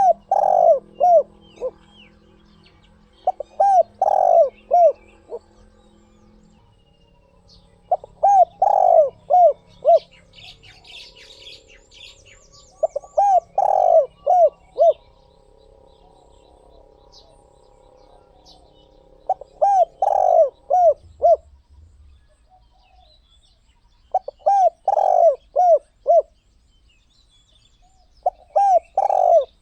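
Spotted dove cooing: a phrase of three to five quick, hoarse coos, repeated seven times, about every four to six seconds. Faint high chirps of other small birds come in about ten seconds in.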